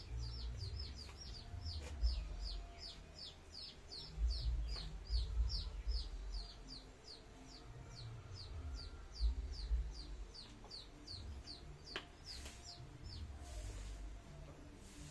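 A bird peeping: a fast run of short, high, falling notes, about three a second, which stops about twelve seconds in. Low rumbles and a few dull thumps lie underneath.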